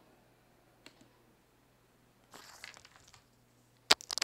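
Quiet room tone with a soft rustle partway through, then a sharp click and a couple of lighter clicks near the end, as the PowerPoint slide show is started on the computer.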